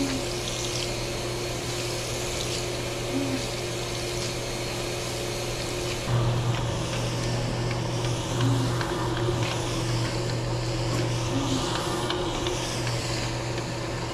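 Electric rotary floor scrubber running, its brush scrubbing shampoo into a wet, soapy rug over a steady motor hum. The sound grows louder about six seconds in.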